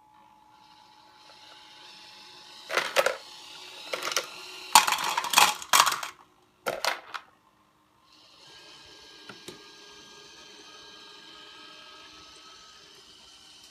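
Ice cubes clattering out of a motor-driven drum hopper's chute into a plastic cup in four bursts, over the steady hum of the hopper's motor. After a short pause, a motor hums steadily again, with one sharp click partway through.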